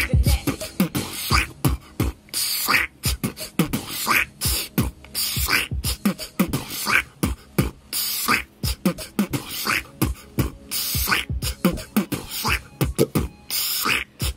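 A man beatboxing: vocal bass-drum thuds and snare-like hissing hits in a steady beat.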